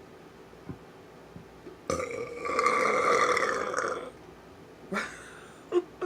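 A person's deliberate, long, loud burp, starting about two seconds in and lasting about two seconds, followed near the end by two brief sharp sounds.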